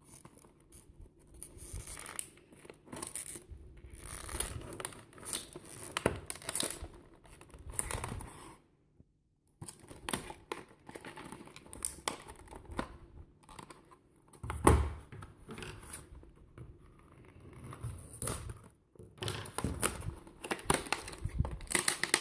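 Toy packaging being opened by hand: irregular tearing, crinkling and rustling of packaging, with handling clicks and one louder thump partway through.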